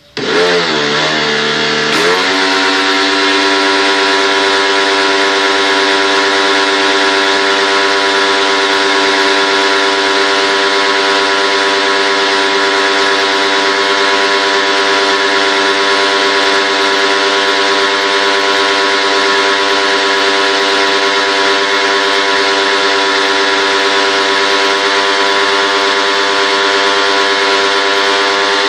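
A motor starts suddenly and rises in pitch for about two seconds, then runs steadily with a strong hum and a hiss.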